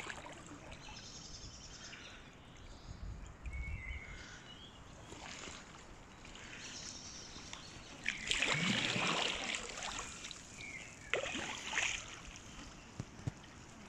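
Kayak paddles dipping and splashing in calm river water, with trickling drips. The loudest stretch of splashing comes about eight seconds in and lasts around two seconds.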